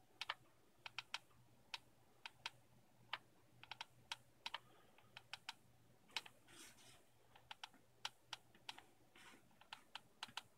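Hot glue gun clicking as its trigger is squeezed in short strokes to feed glue onto the posts of a 3D-printed plastic housing: a string of sharp, irregular clicks, a few a second, over a faint low hum.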